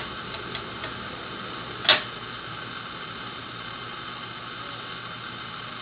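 Paper being handled on an etching press bed: a few light clicks and one sharp snap about two seconds in, over a steady background hiss.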